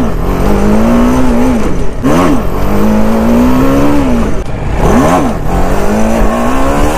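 Motorcycle engine under hard throttle during a wheelie attempt: its pitch jumps up and falls back sharply, about two seconds in and again about five seconds in, and between these it pulls steadily with the pitch slowly climbing.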